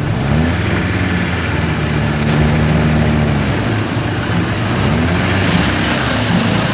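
Off-road vehicle engine running under load and revving. Its pitch climbs, holds for a couple of seconds, drops, then rises and falls again near the end.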